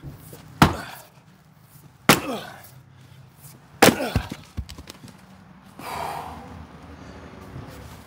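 Fiskars IsoCore 8 lb splitting maul striking a log round three times, about a second and a half apart. The third blow splits the round, followed by a few smaller knocks as the halves fall.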